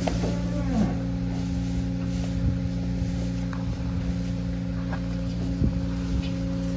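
Steady low machine hum made of several even tones, with a short falling call in the first second.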